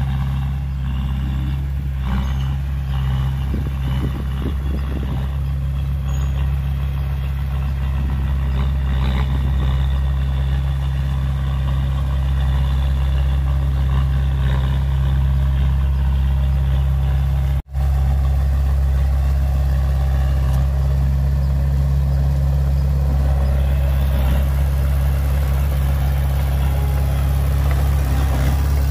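Komatsu D20A crawler bulldozer's diesel engine running steadily. The sound drops out for a split second about two thirds of the way through.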